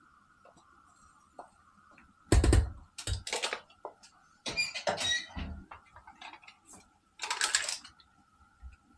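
Spoon scraping and knocking as crème fraîche is spooned out of its tub into a Dutch oven: four short bouts of scraping and clatter, the third with a squeak.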